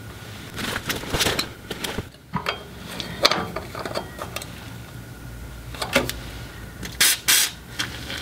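Small metal hand tools clicking and clinking against a rusty truck's parking-brake cable fitting, then two short hisses near the end as aerosol penetrating lubricant is sprayed onto it.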